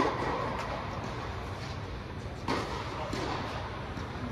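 Tennis balls struck by rackets in an indoor tennis bubble. There is a sharp hit right at the start, another about two and a half seconds later and a fainter knock shortly after, each with a short echo, over a steady low rumble.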